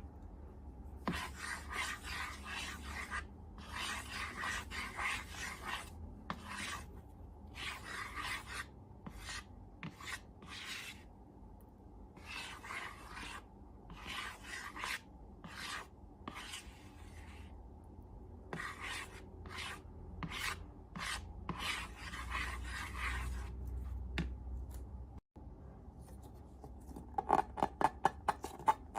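A run of rasping, rubbing strokes, each about a second long with short gaps, as slime-making materials are worked by hand. Near the end comes a quick series of sharp clicks.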